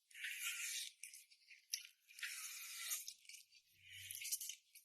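Faint chewing of food in the mouth, in short irregular crunchy spurts with a few small clicks.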